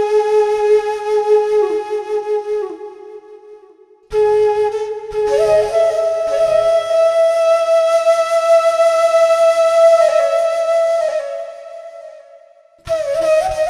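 Background music: long, slow held notes from a single instrument, each fading away before the next. A new note enters about four seconds in and steps up to a higher one a second later, fades out, and another begins near the end.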